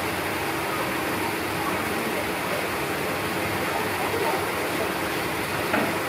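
Steady rush of water from a small artificial waterfall spilling over a rock ledge.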